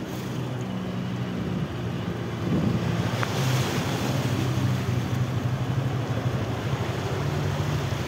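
Motorcycle engine running slowly while riding through floodwater, with water splashing and rushing around the tyres. The water noise grows louder about two and a half seconds in.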